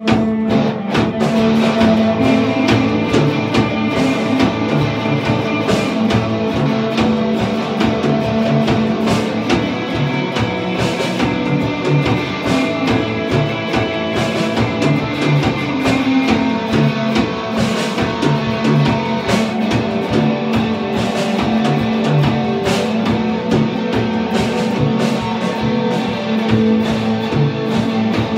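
Live instrumental punk-industrial metal: two electric guitars and a Gretsch drum kit playing together, with a steady drum beat under sustained guitar notes.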